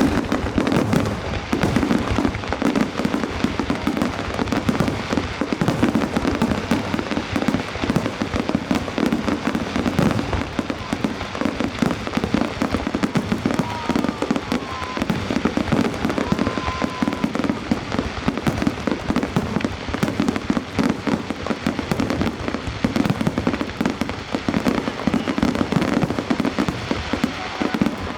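Fireworks display going off in a rapid, continuous barrage of bangs and crackles.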